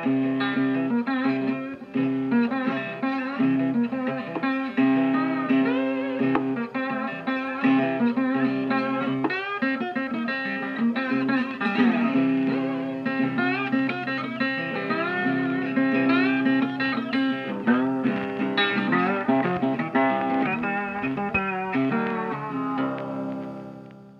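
Outro music: a blues-style guitar instrumental with many bending, sliding notes over a steady low note, fading out near the end.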